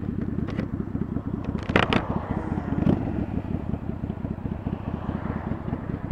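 Cruiser motorcycle engine running with a low, even putter as the bike slows down, with wind noise on the helmet microphone. There is a short sharp knock about two seconds in.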